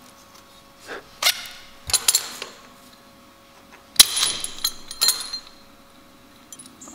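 Small steel parts clinking: a bolt, washers and a drilled steel plate bracket knocked together while being handled, in a few sharp clinks that ring briefly, the loudest about four seconds in.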